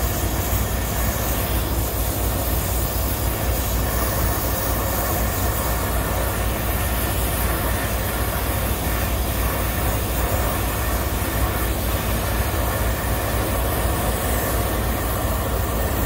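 Brazing torch flame burning steadily with a constant rushing hiss as it heats a brazed fitting on a refrigerant pipe to unsweat it during a compressor removal. A steady low hum runs underneath.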